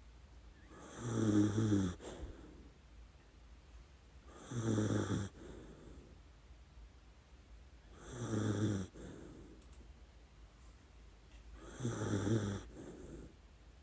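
Dachshund snoring in her sleep: four snores about three and a half seconds apart, each about a second long, a low buzzing rattle with a hiss above it.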